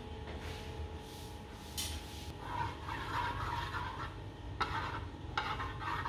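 Butter melting and sizzling in a nonstick wok while a spatula stirs it round. The sizzle comes up about two and a half seconds in, with a few sharper scrapes of the spatula against the pan.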